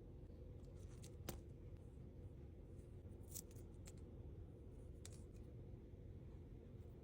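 Near silence over a low steady hum, with a few faint sharp clicks of small tools and parts being handled during an iPad repair: one about a second in, then several between three and five seconds in.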